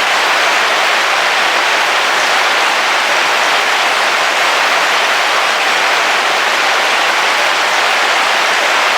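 Heavy rain falling steadily on a car's roof, heard from inside the car: a dense, even hiss with no thunder.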